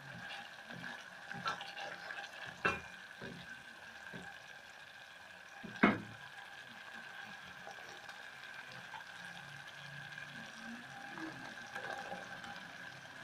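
Onions and tomato sauce sizzling in a stainless steel pot with a steady hiss, stirred with a wooden spoon. There is a sharp knock about six seconds in and a smaller click before it. Red kidney beans are tipped into the pot near the end.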